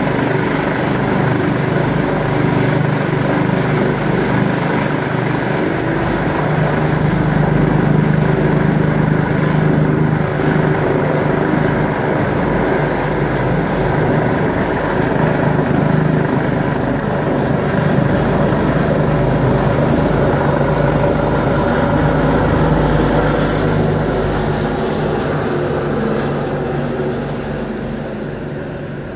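Rega Eurocopter EC145 rescue helicopter running on a rooftop helipad, its turbines and main and tail rotors making a steady loud hum. The sound fades over the last few seconds as the helicopter leaves the pad.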